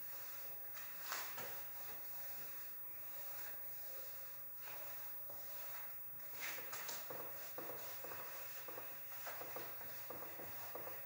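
Handheld eraser rubbing across a whiteboard, wiping off marker in faint rasping strokes, a few at first and then a quicker run of back-and-forth strokes in the second half.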